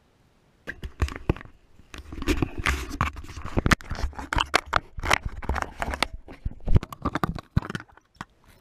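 Close handling noise: irregular knocks, clicks, scrapes and rustling as the camera is taken off the rifle and moved around. It starts suddenly about half a second in after near silence.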